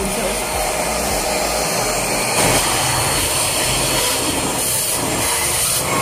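Deerma DX118C vacuum cleaner, used as a handheld, running steadily as its narrow nozzle sucks dust and grit out of a window track.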